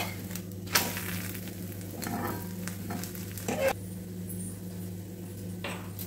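Egg and oil sizzling steadily on a hot flat tawa as an egg-topped paratha fries for an egg roll. A steady low hum runs underneath, and a few brief knocks come about a second in, mid-way and near the end.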